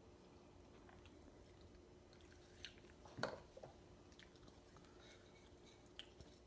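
Near silence with the soft sounds of eating by hand: a few faint clicks and one sharper knock about three seconds in, as a small bowl is lifted and handled over a plate.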